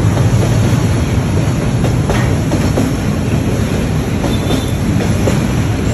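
Freight train of container wagons passing close by: a loud, steady rumble of steel wheels on the rails with irregular clacking, and a brief high wheel squeal past the middle.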